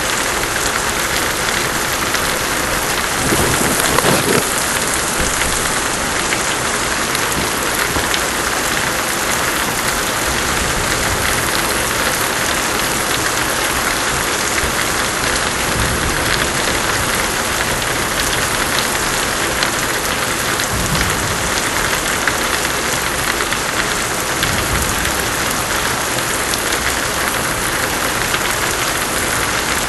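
Steady pouring rain, with a short louder clap of thunder about four seconds in.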